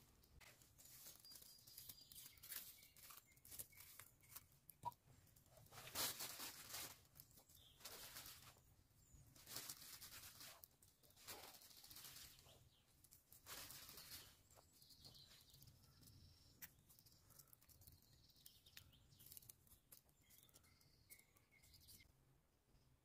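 Faint, irregular scraping and rustling as potatoes are moved about in campfire embers with a stick, with a bird chirping faintly now and then.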